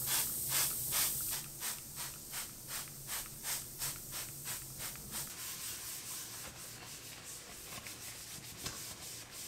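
Scrubbing a white ceramic kitchen sink coated with baking soda and citric acid: quick, rhythmic back-and-forth rubbing strokes, with the gritty baking soda grains acting as an abrasive. The strokes grow fainter after about five seconds.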